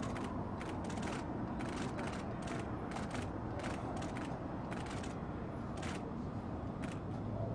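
Photographers' SLR camera shutters clicking over and over, about two to three shots a second, thinning out to single clicks after about five seconds, over a steady low background rumble.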